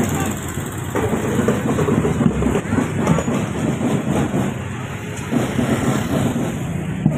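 A motor vehicle running steadily, a continuous low mechanical noise.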